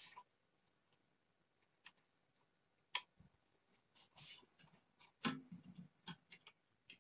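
Faint scattered clicks and rustling of hands fitting a thin metal tuning dial plate onto an old tube radio's chassis, with sharp clicks about three seconds in and a little after five.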